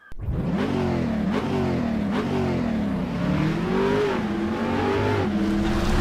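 Car engine revving, its pitch climbing and dropping about five times in quick succession, then holding a steadier note near the end.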